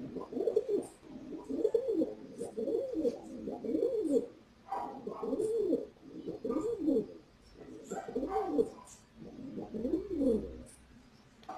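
Feral pigeon cooing over and over, a string of low coos that rise and fall in pitch, about one every second.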